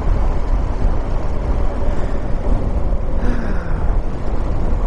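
Heavy wind rushing and buffeting over the microphone of a BMW R1200GS Adventure motorcycle riding at road speed in strong crosswinds, a loud, steady low rumble.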